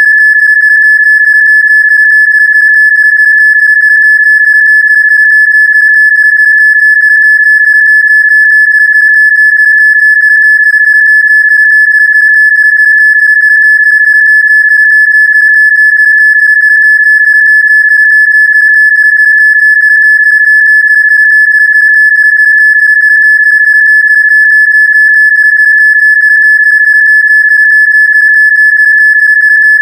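A synthesized Rife-frequency tone: one loud, steady, high-pitched electronic sine tone, held unchanged at a single pitch.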